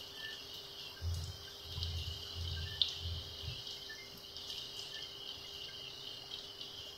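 Breaded eggplant sticks deep-frying in hot oil in a pan: a steady sizzle with scattered pops and crackles. A few low bumps come between about one and three and a half seconds in.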